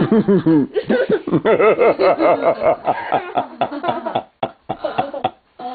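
A toddler laughing hard in a long run of quick, high-pitched giggles, with a couple of short catches for breath near the end.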